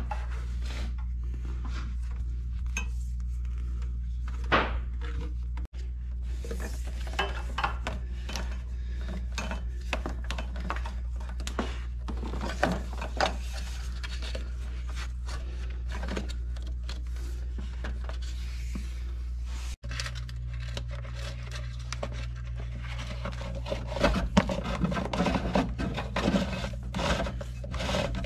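Electrical wire being pulled and fed along a tractor's frame: rubbing and scraping of the wire against metal, with scattered light clicks and knocks of handling that grow busier near the end, over a steady low hum.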